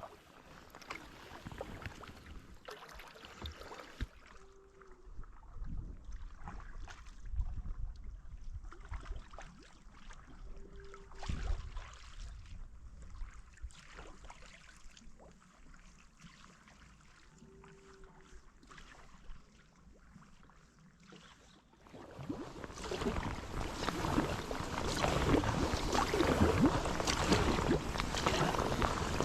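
Kayak paddle strokes on flat calm water: the blades dipping in and drips falling off them in an uneven rhythm of small splashes. For the last several seconds a louder steady rushing noise of water or wind comes in over the strokes.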